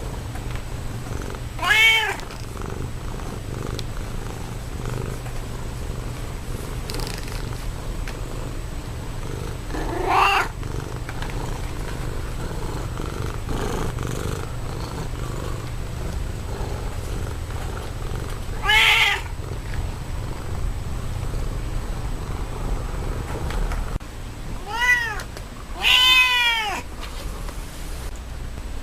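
Domestic cat meowing five times, short arching calls several seconds apart, the last two close together near the end. A steady low purr-like rumble runs underneath for most of the stretch.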